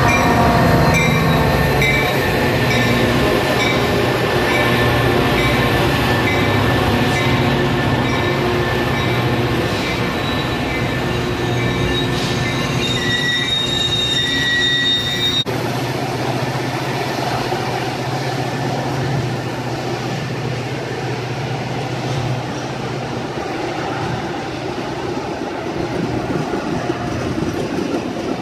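Metra diesel commuter train arriving at a station stop: the locomotive's engine runs and its bell rings over the first several seconds as it passes. High-pitched brake and wheel squeal from the slowing train cuts off abruptly about halfway, and after that the double-deck gallery coaches roll by with steady wheel noise.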